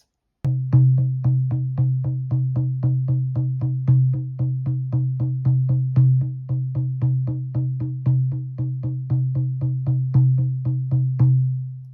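Shamanic hand drum struck with a drum beater in a steady, even beat of about four strokes a second, each stroke giving a deep ringing tone. The beating stops near the end and the last tone rings away.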